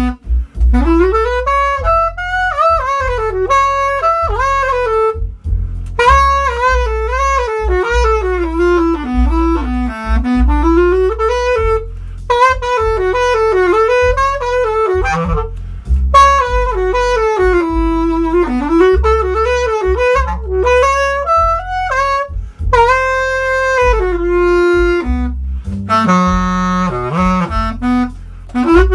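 Bass clarinet improvising a bluesy jazz line, a single melody rising and falling in phrases with short breaks between them.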